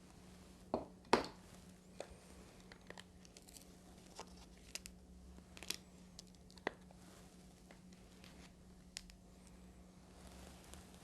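Faint scattered clicks and crinkling handling noises in a small room, the two loudest close together about a second in, over a steady low hum.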